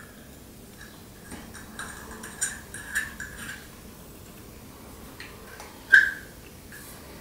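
Small metal and plastic clicks and scrapes of a pig saddle rifle clamp and its tripod adapter plate being handled and fitted together, with short squeaks. The loudest is a single sharp click about six seconds in.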